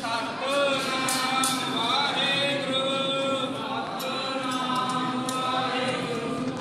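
Male voices chanting Sikh Gurbani in a drawn-out, sung melody with long held notes. A few light clicks sound over it.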